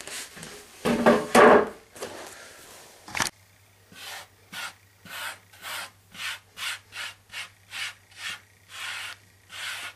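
Rough back-and-forth abrading strokes, about two a second, as the hardened plastic-and-super-glue putty on a 3D printer's print bed is rubbed down by hand, with a louder scrape or two in the first second and a half.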